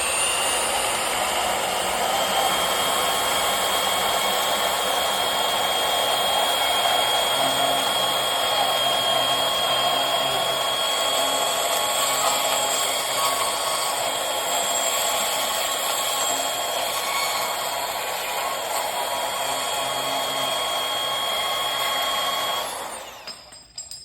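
Cordless portable band saw running and cutting through metal stock: a steady, loud whine with a high tone. It stops suddenly about a second before the end.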